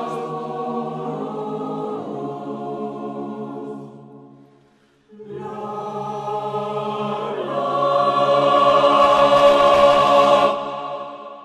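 Mixed choir singing sustained chords, a Christmas carol: one chord fades out about four seconds in, and after a short pause a final chord swells loud and is cut off near the end.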